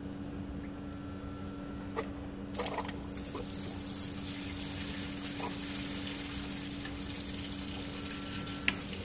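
Coolant water gushing and splashing out of a trepanning tool, pushing the stuck titanium core out of the cutter, over a steady machine hum. The rush of water comes in about two and a half seconds in, with a few knocks around then and a sharp click near the end.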